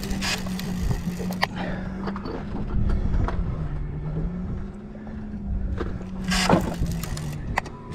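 A motor's steady low hum that dips and rises slightly in pitch, under wind on the microphone, with a few short knocks from a large conventional fishing reel being cranked.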